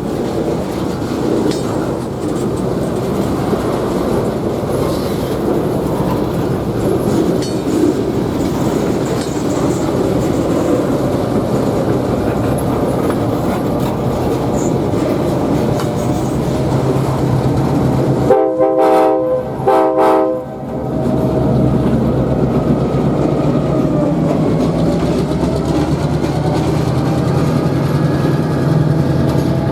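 A train rumbles by with its wheels clicking over the rail joints. Then a Nathan K5LA five-chime air horn sounds two short blasts. After the horn, a steady low engine drone continues.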